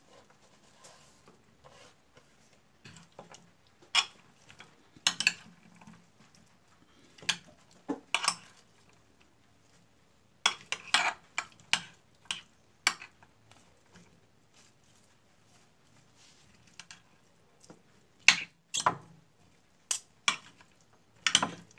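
Metal spoon and fork clinking against a glass baking dish while tossing chopped vegetables, in irregular sharp clinks, some in quick clusters.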